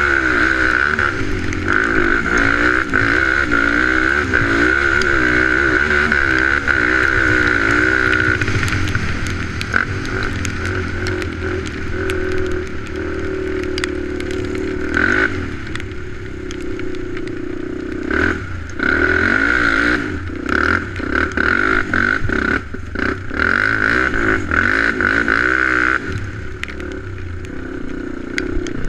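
ATV engine running while riding a rough trail, its revs rising and falling, with a high steady whine that cuts out and comes back several times. Short knocks and rattles from the bumps, most of them in the second half.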